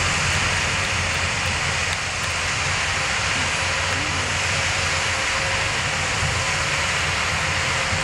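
Shantui DH17C2 crawler bulldozers running steadily while pushing wet soil with their blades: a continuous low engine rumble with an even hiss over it.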